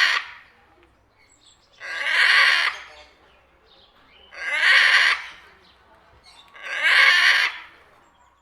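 Parrot calling: the tail of one call at the start, then three more calls, each about a second long, one every two and a half seconds or so.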